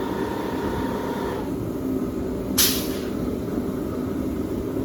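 Air compressor running, then switched off about a second and a half in, its steady tones dropping away. About a second later there is a short, sharp hiss of air, and a steady low hum carries on underneath.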